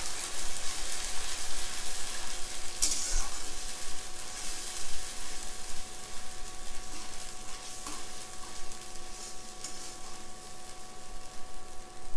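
Onions and ginger-garlic paste sizzling in hot oil in a metal kadai, stirred with a metal ladle, with a louder burst of sizzling about three seconds in.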